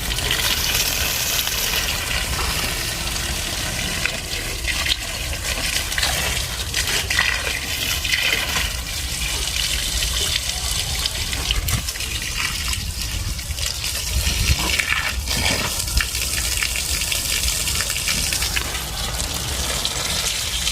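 Water gushing and splashing steadily as plants are watered.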